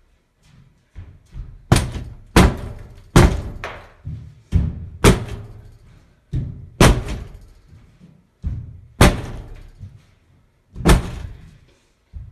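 Repeated heavy blows against an interior door from the other side: about seven loud strikes and several lighter ones at uneven intervals, each a sharp thud with a short rattle.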